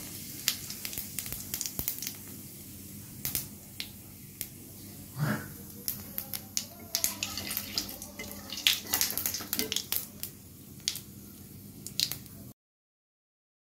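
Whole cumin seeds frying in hot mustard oil: a steady sizzle with sharp, irregular pops and crackles as the seeds spit. This is the tempering stage, the seeds crackling in oil that is hot enough. The sound cuts off suddenly near the end.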